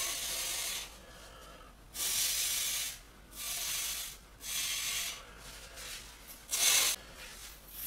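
A series of about five short, hissing breaths, each under a second long, from a man straining as he flexes his muscles.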